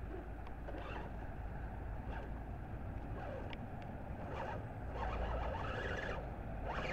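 Electric RC rock crawler's motor and geared drivetrain whining, rising and falling in pitch as the throttle is worked while the truck climbs over a log. A steady low rumble runs underneath.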